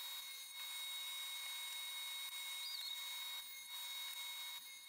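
SawStop table saw with a dado stack, faint, cutting dados in an oak board. It is heard as a steady high hiss that dips briefly twice near the end.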